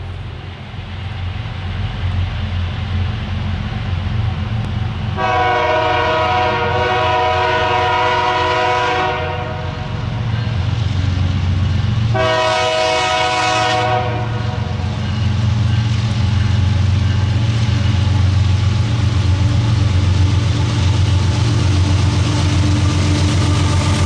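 Approaching BNSF diesel locomotives: a low engine rumble that grows steadily louder, with a long horn blast about five seconds in lasting about four seconds and a shorter horn blast about twelve seconds in.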